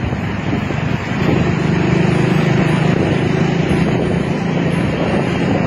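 Motorcycle engines running while riding in traffic, with road and wind noise; the engine hum grows louder about a second in and then holds steady.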